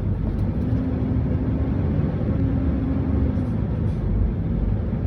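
Heavy truck's diesel engine running under load as the truck pulls away, a steady low rumble whose pitch drifts slightly up and down.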